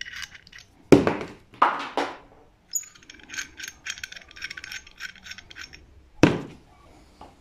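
Small fittings being unscrewed from an aluminium vacuum block and set down, clinking and clicking, with a few sharper knocks about a second in, around two seconds in and near the end, and a quick run of small ticks in the middle.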